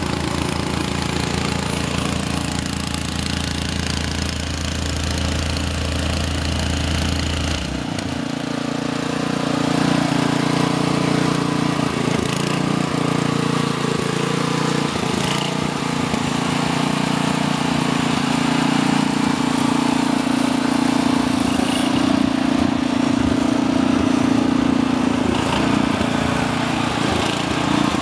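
Gas engine of an Essick walk-behind vibratory asphalt roller running steadily. About a third of the way in a deep low rumble drops out and a higher engine hum becomes louder.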